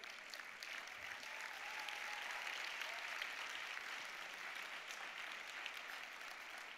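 Large audience applauding, the clapping swelling over the first two or three seconds and then slowly fading.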